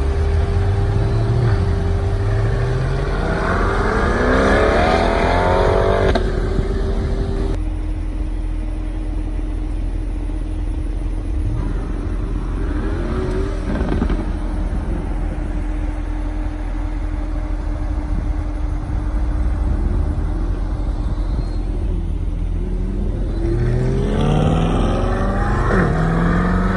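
2020 Chevrolet Corvette Stingray (C8) with its mid-mounted 6.2 L V8 accelerating away, its engine note rising three times: about four seconds in, around thirteen seconds and near the end. A steady low rumble and a held engine tone lie underneath between the pulls.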